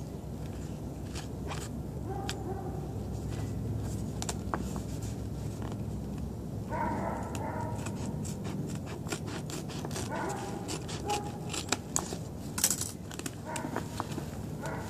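Hands handling a nylon disc golf backpack: rustling fabric with scattered clicks and scrapes, growing busier in the second half.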